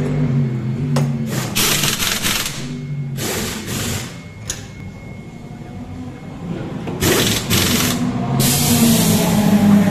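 Pneumatic pit-lane equipment hissing and whirring in four bursts of a second or so, over a race car engine idling.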